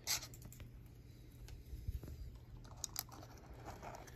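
Small plastic clicks and taps from handling a microSD card as it is pulled from a breakout board and pushed back into its SD adapter: one sharp click at the start, then a few lighter ones.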